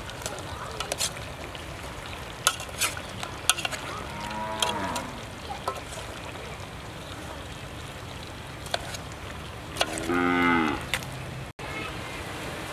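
A cow mooing twice: a shorter call about four seconds in and a louder one of about a second near the end. Sharp clinks of a utensil against an aluminium pot as vegetables are stirred come earlier.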